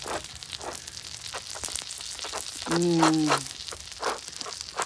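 Butter sizzling with small crackling pops on a hot flat-top griddle under a sandwich frying in it. A short low hummed 'mm' from a man about three seconds in.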